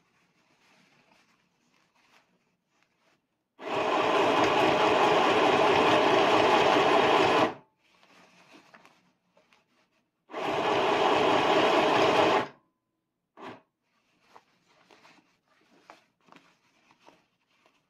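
Compact electric sewing machine (FHSM-505B) stitching through denim in two runs, one of about four seconds and then a shorter one of about two seconds, with a brief blip about a second later. Faint rustling of the fabric being handled comes in between.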